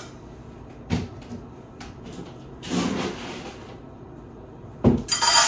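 Kitchen handling sounds: a knock about a second in, a brief rustle around three seconds, then a thump and a ringing clatter near the end, like a cabinet door and cookware being moved.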